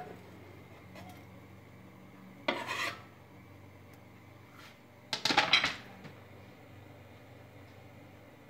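Kitchen knife scraping and clattering against a pan and cutting board as diced raw bacon is pushed into the pan, in two short bursts about two and a half and five seconds in, the second longer.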